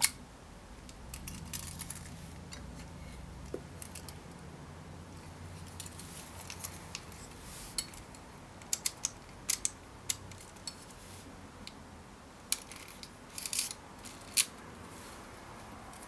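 Konica Autoreflex TC 35mm SLR camera being handled: scattered small mechanical clicks as its controls are worked, including the shutter speed dial being turned. A few sharper, louder clicks stand out, one right at the start and another about fourteen seconds in.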